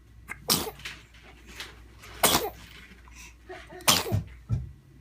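A baby sneezing three times, each sneeze a sharp, sudden burst about a second and a half apart.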